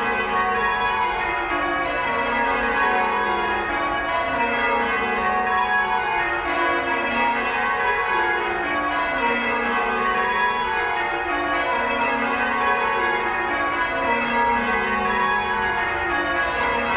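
Christ Church Cathedral's tower bells change ringing: the bells strike one after another in falling runs from high to low, each round repeating about every two seconds without a break.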